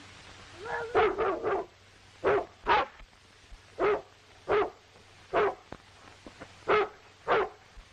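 A dog barking repeatedly: a quick run of barks about a second in, then about seven single barks, several of them in pairs.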